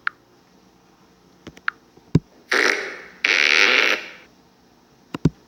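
A few sharp clicks, then two loud, harsh noise bursts from a prank sound-effects app played back back to back about halfway through, each lasting under a second.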